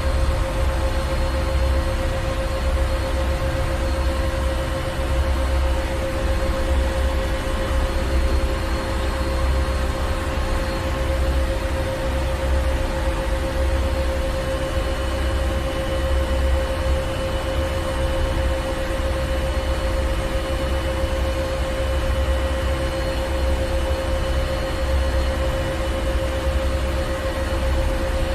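Ship's engine room machinery running steadily: a low rumble that swells and fades unevenly, under a constant hum with a strong mid-pitched tone and a steady hiss.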